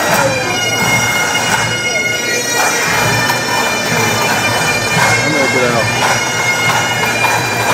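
Bagpipes playing a tune over their steady drones, with crowd voices underneath.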